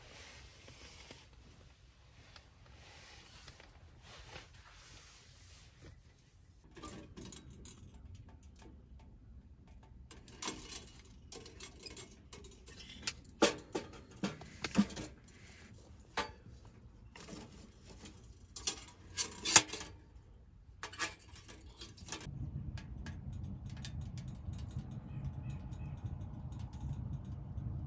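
Small metal wood-burning tent stove being stoked with split firewood: a run of sharp knocks and clanks as logs are pushed against the firebox and its door, several of them loud. Near the end a steady low rumble sets in.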